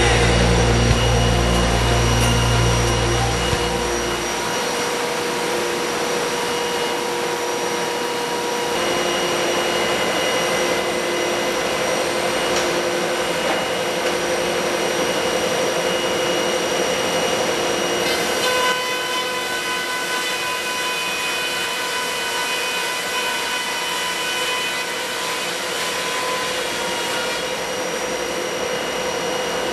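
Large high-speed four-sided planer (moulder) running, a steady rushing noise with several high whining tones from its spinning cutterheads. A low rumble drops away about four seconds in, and the tones shift about nine and again about eighteen seconds in.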